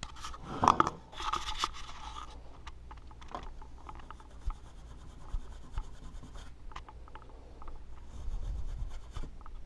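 Fine triple-0 steel wool scrubbing a sheet-metal amplifier chassis wetted with Windex: a scratchy rubbing, loudest in the first two seconds, then fainter and steady with small clicks. It is scrubbing caked insect droppings off the metal.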